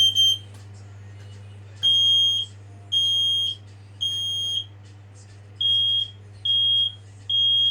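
Smoke alarm sounding on test: a loud, high-pitched beep repeating in groups of three with a pause between groups, the temporal-three evacuation pattern. A clipped beep comes at the very start, then two full groups of three, with a steady low hum underneath.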